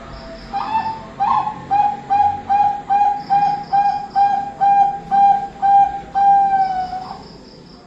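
A bird calling a run of short, clear whistled notes, all at one pitch and evenly spaced about two and a half a second. The run ends in one longer, slightly falling note.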